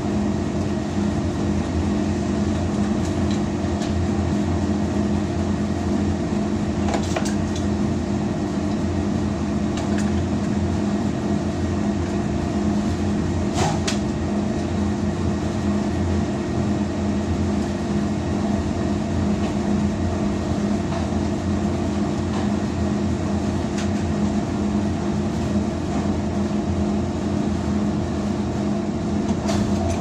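Steady mechanical hum of industrial laundry machinery running, with several constant low tones. A few sharp clicks stand out over it.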